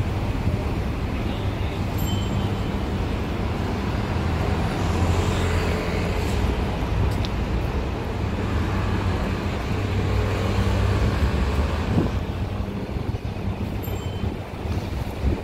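City street traffic: vehicle engines running steadily under road noise, with a vehicle passing through the middle. Two short high beeps stand out, one near the start and one near the end.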